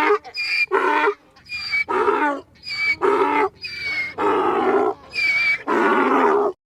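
An animal giving a series of repeated calls, about one a second, each a short pitched call with rich overtones, the last few longer; the calling stops abruptly near the end.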